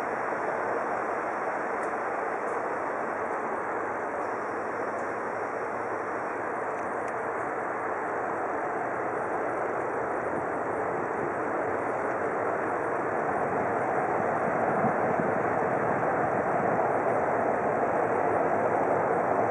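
A train running: a steady noise that grows louder about two-thirds of the way through.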